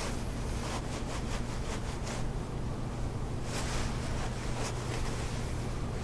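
A steady low hum under a hiss, with a few soft, irregular scuffs and rustles of footsteps and a padded jacket.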